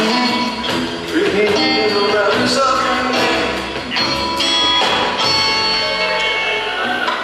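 Live rock trio playing a slow song: electric guitar with upright bass and drums.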